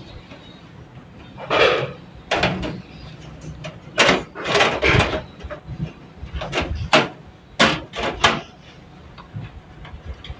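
Irregular knocks, clicks and scrapes from handling a motherboard and metal PC case, about a dozen of them at uneven intervals, while the board is being set in place to be screwed down.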